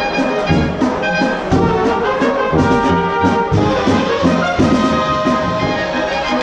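Bohemian-style brass band (Böhmische) playing a waltz: tubas, trumpets and drum, with a low bass note about once a second under sustained melody notes.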